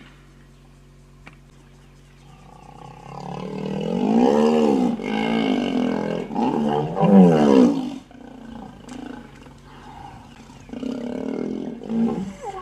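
Hippopotamus calling, a sound like snoring: a wheezing build-up about two seconds in, then a run of four or five loud honks that rise and fall in pitch, lower grunts after, and a shorter burst near the end. The uploader calls the hippo aggressive.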